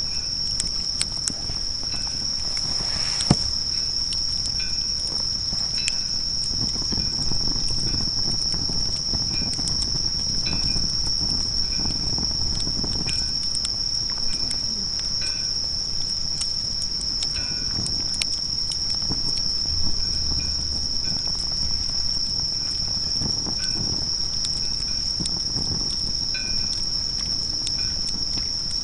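Insects trilling steadily at one high pitch without a break, with scattered sharp crackles and a single louder click about three seconds in.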